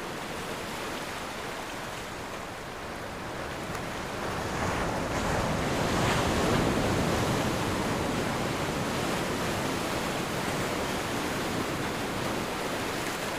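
Ocean waves rushing in surf, a steady hiss that swells to its loudest about six seconds in and then eases slightly.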